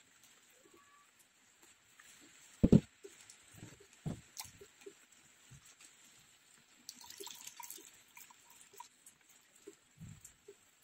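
Scattered knocks and thumps, the loudest one about two and a half seconds in, with a few faint short chirps past the middle.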